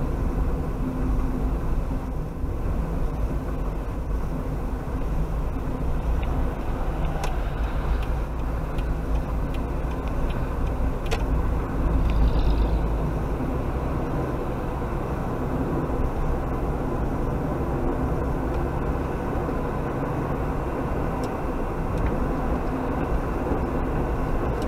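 Steady rumble of engine and tyre noise heard from inside a car cruising at about 60 km/h, as picked up by its dashcam microphone. A couple of light ticks come about seven and eleven seconds in.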